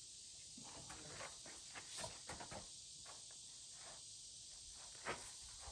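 Faint, irregular metallic clicks and taps from a long-handled wrench tightening a nut on a Bobcat S250 hydraulic lift cylinder, with one sharper click about five seconds in.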